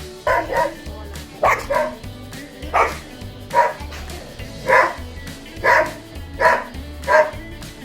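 A dog barking in a steady series, about ten short barks roughly one a second, over background music with a regular low beat.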